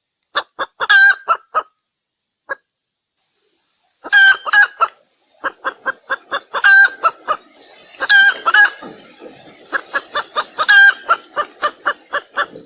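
Female red junglefowl (Sumatran wild hen) giving her lure call: short, sharp clucking notes, first in a few scattered clusters, then from about four seconds in a steady run of two to three notes a second. This is the hen's call that draws in wild cocks.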